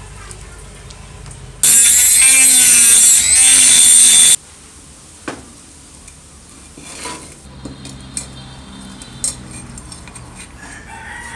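A rooster crowing once, loud, for nearly three seconds with a wavering pitch. Afterwards come a few faint clicks of metal parts being handled.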